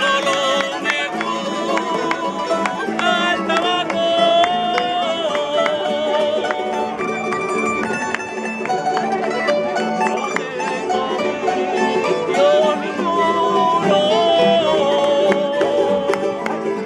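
Folk string band of acoustic guitars and a bandurria-style lute strumming and plucking a tune, with a man's voice singing a wavering melody over it.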